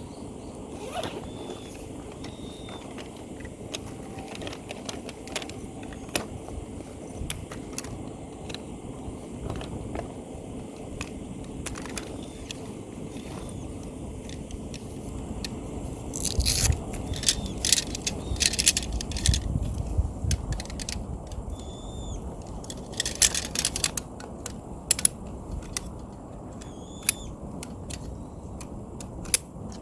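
Objects being handled: intermittent scrapes, clicks and clinks. They come thickest in two busy spells past the middle, over a steady low background, with a few short high chirps.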